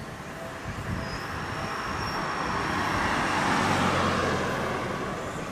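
Seibu 6000-series electric train running into a station: the rumble of wheels and motors grows louder, is loudest about three and a half seconds in, then eases as the train slows, with a thin high whine running above it.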